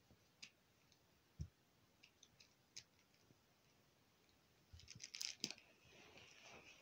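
Near silence broken by faint handling noises of plush toys being shifted on a rug: scattered light clicks, a soft thump about a second and a half in, and a cluster of clicks about five seconds in, followed by soft rustling.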